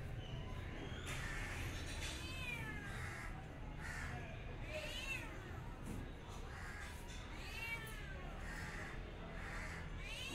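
A cat meowing: three long meows, each rising then falling in pitch, about two and a half seconds apart, with a fourth beginning right at the end. Shorter hoarse calls repeat faintly between them.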